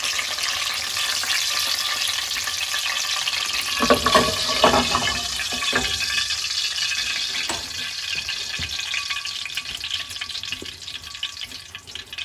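Hot olive oil sizzling in a frying pan where breaded chicken cutlets are frying, a steady crackling hiss that fades over the last few seconds. A few soft knocks come about four seconds in.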